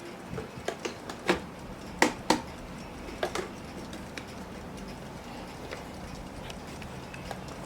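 Irregular sharp clicks and knocks from a vintage West German mechanical alarm clock being handled: about eight in the first three and a half seconds, then only a few faint clicks.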